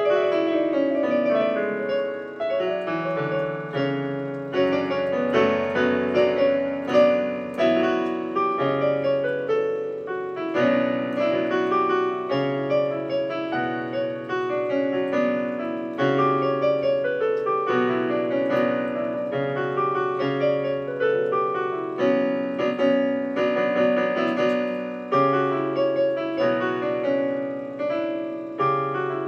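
Digital piano played with both hands: a continuous flow of notes ringing into one another, with falling runs in the low register.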